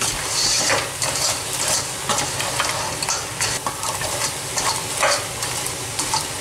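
Crab pieces in their shells being stirred with a wooden spatula in a hot pan of oil, onion and spices: irregular knocking and scraping of shells and spatula against the pan over a steady sizzle.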